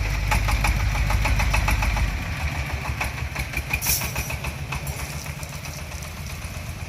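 Diesel engine running with a rapid, even knocking beat over a low rumble. The rumble drops away about two seconds in and the engine grows quieter, with a sharp metallic clack about four seconds in.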